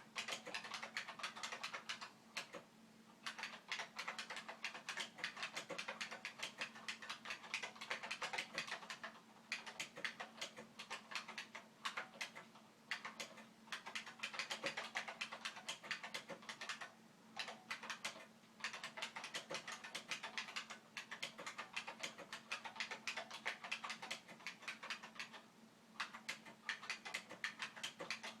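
Buckling-spring keys of a Unicomp Classic-101 keyboard clacking in fast typing, the loud click of each keystroke running in bursts of a few seconds with short pauses between them. A faint steady hum lies underneath.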